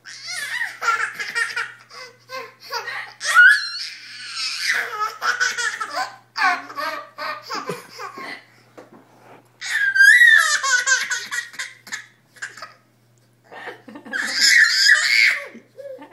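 A young child laughing hard in several bursts with short pauses between, set off by hiccups.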